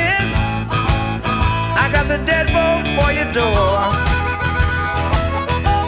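Electric Texas blues band playing an instrumental stretch between vocal lines, with a lead electric guitar bending notes over bass and drums.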